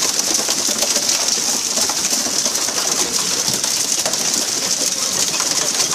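Steady, loud hiss of the boat's water-spray jets striking the sea surface, with the splash and rush of water alongside the hull.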